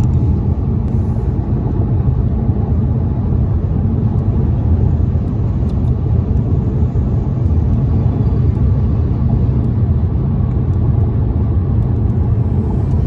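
Steady rumble of a car cruising at freeway speed, heard from inside the cabin: road and tyre noise.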